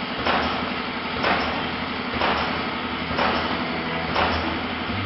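Pouch packing machine running, its film web moving over the rollers, with a regular stroke about once a second over a steady low hum.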